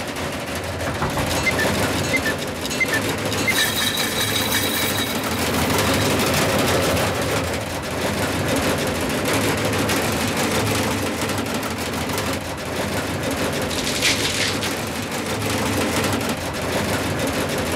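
A machine running with a steady, loud clattering rumble. A brief high whistling tone rises above it about four seconds in.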